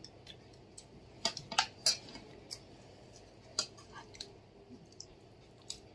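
Steel spoon clinking and scraping against a ceramic serving bowl and plates in scattered light clicks, a cluster of them between one and two seconds in.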